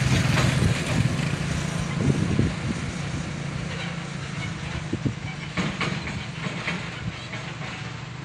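Diesel flatbed truck engine running as the truck drives away, its sound fading, with a motorcycle passing close by in the first couple of seconds. A few short clatters come about five to six seconds in.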